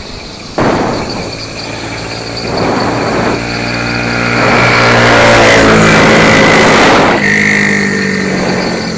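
A motor vehicle's engine running close by. It cuts in suddenly, grows louder with its pitch slowly shifting, then eases off near the end.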